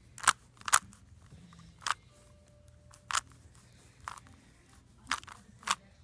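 Rubik's cube being scrambled by hand: sharp plastic clicks as its layers are turned, about seven at uneven spacing, the loudest two near the start.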